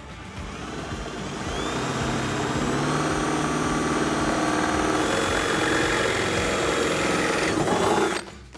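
Cordless drill spinning an 11/32-inch bit through a car's deck lid to widen a pilot hole. The motor speeds up with a rising whine over the first couple of seconds, runs steadily while cutting, then stops suddenly just before the end.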